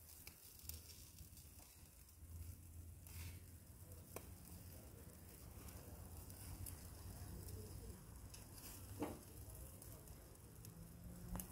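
Near silence: a faint low hum and hiss, with a few soft clicks.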